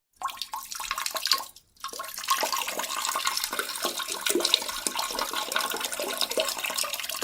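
Rushing, splashing water, cut by a short silence about one and a half seconds in.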